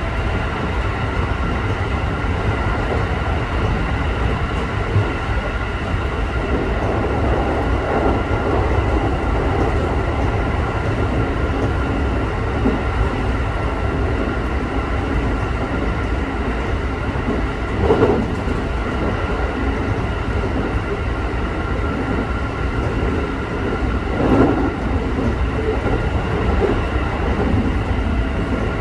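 Electric local train running between stations, heard from inside the car: a steady rumble of wheels on rail under a constant hum. Two brief louder knocks come in the second half.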